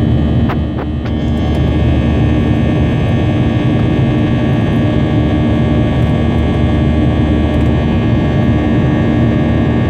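Boeing 737's CFM56 jet engines running steadily after takeoff: a constant noise with a steady hum under it, dipping briefly with two faint clicks about a second in.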